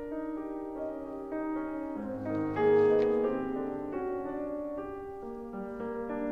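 Solo piano playing a classical piece: a melody of notes about half a second apart over chords. Lower bass notes come in about two seconds in, with a louder chord just after.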